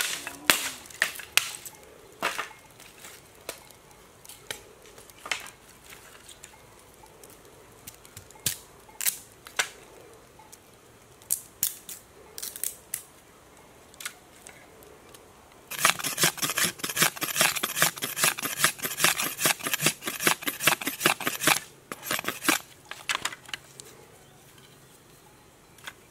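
Machete blade striking dry bamboo in single sharp knocks, then a quick run of strokes, several a second, for about six seconds as the bamboo is worked into fine shavings, with a few more knocks after.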